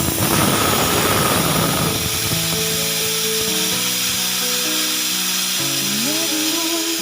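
Compressed air hissing out of an air compressor's tank as its stored pressure of about 120 is bled off, a loud steady hiss. Background music plays underneath.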